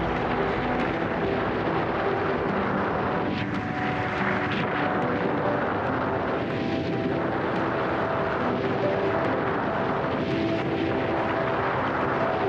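Steady rush of wind buffeting the microphone of a windsurfer's action camera, with water hissing along the board as it planes. Background music plays faintly underneath.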